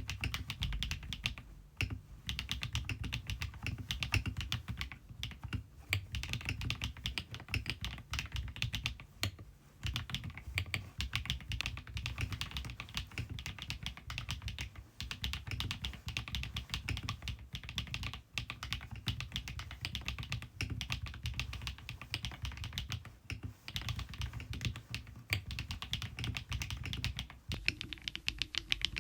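Typing on a KiiBOOM Phantom 81 V2 mechanical keyboard: a quick, continuous stream of key clacks, broken by a few short pauses.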